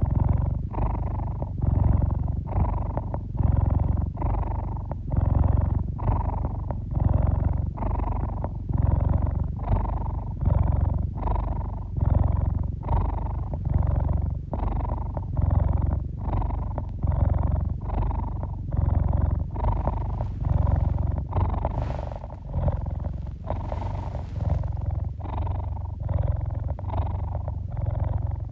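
Domestic tabby cat purring loudly and close up, a continuous low rumble that pulses in a steady rhythm as it breathes in and out. A few brief soft rustles come about three-quarters of the way through.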